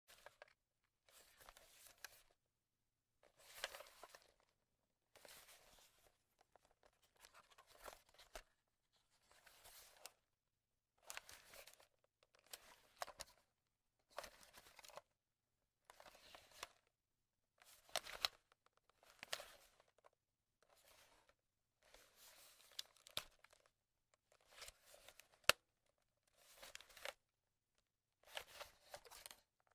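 A camera being handled: quiet short bursts of rubbing, rattling and clicks from its body and controls, one every second or two with silent gaps between. The loudest is a single sharp click near the end.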